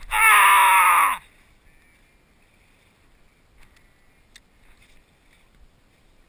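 A single loud wordless yell right at the microphone, about a second long, its pitch dropping at the end. Afterwards it is quiet apart from a couple of faint clicks.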